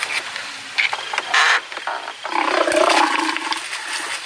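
Snarling and growling from a fight between spotted hyenas and a leopard: a short harsh snarl about a second and a half in, then a rough growl lasting over a second.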